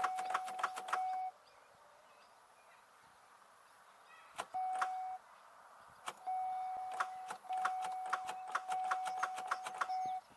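Rapid clicking from a 2002 Chevy Malibu's starter as the key is held to start, about five clicks a second, in four bursts with pauses between; the engine does not crank or catch. A steady electronic tone from the dash sounds with each burst. The clicking is the sign of a weak, failing starter.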